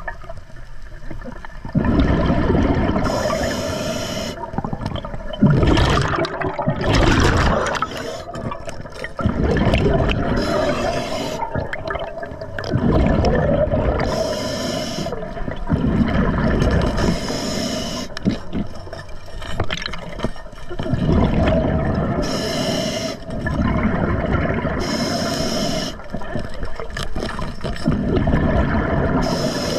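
Scuba diver breathing through an Atomic regulator underwater: a short hissing inhalation, then a rumbling gush of exhaled bubbles, repeating roughly every four seconds. A steady hum runs underneath.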